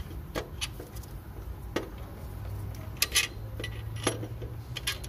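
Scattered sharp metallic clicks and clinks of the alternator's steel mounting bolts being handled and started by hand into the bracket, a few strokes close together about three seconds in.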